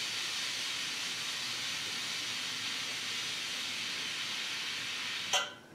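Steam radiator hissing steadily, then cutting off near the end.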